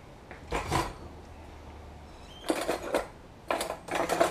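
Metal cutlery in a kitchen drawer clinking and rattling as a hand rummages through it for a fork, in a few short clatters that grow busier near the end, after a single knock about half a second in.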